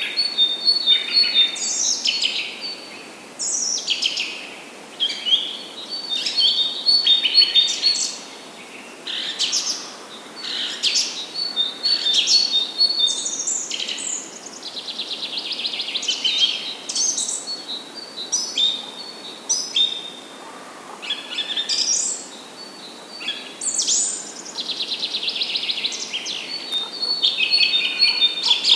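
Songbirds singing continuously, several overlapping phrases of quick chirps, trills and slurred whistles, over a faint steady hiss.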